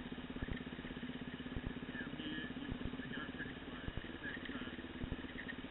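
Dirt bike engine running steadily while riding a rough trail, with frequent irregular knocks and jolts from the bumps.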